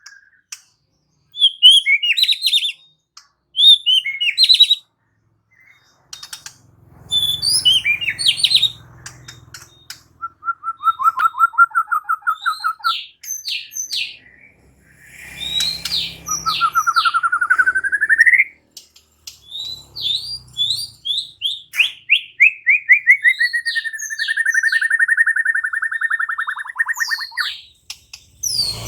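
White-rumped shama (murai batu) singing a varied song: clusters of quick chirps, fast trills, a rising sweep, and near the end a long run of rapid repeated notes that slowly falls in pitch.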